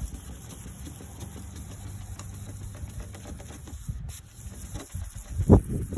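Abrasive polishing pad rubbed back and forth under firm pressure on a wet, oxidised plastic headlight lens, a steady scrubbing; one loud low thump near the end.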